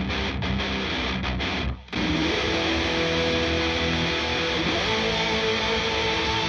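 Distorted heavy metal rhythm guitar played through a Celestion G12-50GL Lynchback speaker in a 1x12 cabinet, driven by a Blackstar 1046L6 amp with no EQ or compression, playing short stopped chords. Just under two seconds in it cuts out briefly, then returns with a lead guitar holding long sustained notes over the rhythm.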